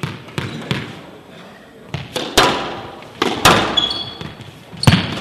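Squash ball being struck and rebounding off the walls of a glass squash court: a string of sharp cracks at uneven intervals, each ringing on in the hall, the loudest a little past two seconds, about three and a half seconds in and near the end. Short high squeaks of court shoes on the floor come about four seconds in.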